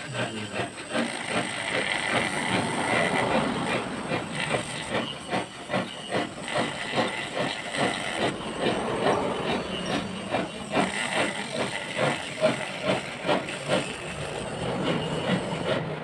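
Mini rotary tool (mini Dremel) grinding against a workpiece: a continuous hissing, rasping noise that keeps fluttering in level as the bit bites and eases off.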